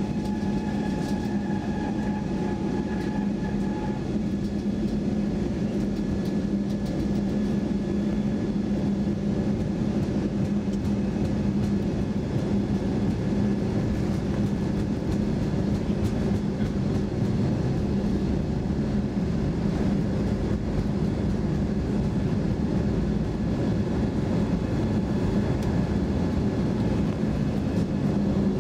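Steady cabin noise inside an Airbus A320neo taxiing: its Pratt & Whitney geared turbofan engines run at low thrust with a constant low hum, over a rumble from the airframe and wheels. A fainter higher whine fades out about four seconds in.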